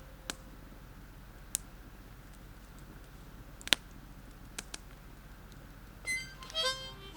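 Campfire wood crackling, with a few sharp, isolated pops over a faint low hum; the loudest pop comes a little past halfway. Near the end, a brief buzzing whine that wavers in pitch.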